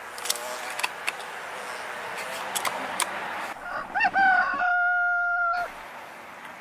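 A rooster crowing once: a few short rising notes, then a long held note that cuts off suddenly. Before it, outdoor background hiss with a few sharp clicks.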